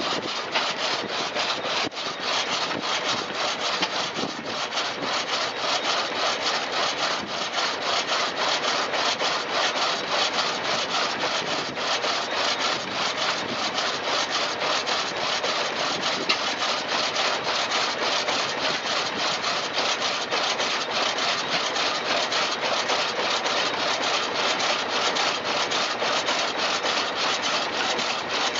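Drag saw's long crosscut blade working back and forth through a log, a steady, unbroken sawing of teeth in wood.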